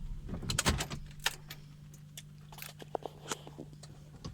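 A string of light clicks and knocks, the loudest cluster about half a second in, over a steady low hum.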